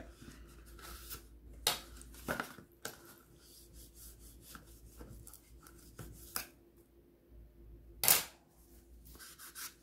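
Paper and cardstock being handled: scattered light rustles and taps, with one short, louder brushing sound about eight seconds in.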